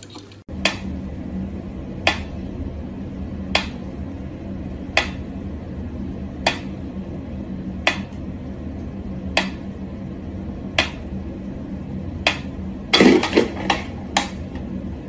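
Mechanical pendulum metronome ticking slowly and evenly, about one tick every second and a half. A short burst of clattering noise comes near the end.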